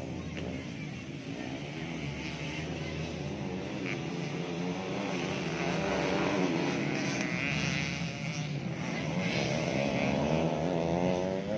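Several motocross bike engines revving as they race, their pitch repeatedly climbing and falling. The sound grows louder about halfway through.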